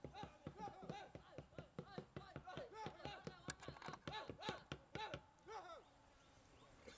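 A rapid, continuous run of short chirping calls, several a second, that stops near the end.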